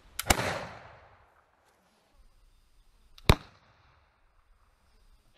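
Flintlock pistol firing: a brief snap of the lock and pan, then the main report with a short echoing tail. A second sharp crack comes about three seconds later.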